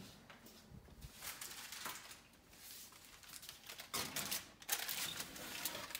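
Metal oven rack and wire roasting rack clattering and clicking as a loaded tray is slid into an oven, with a run of sharp rattles about four to five seconds in.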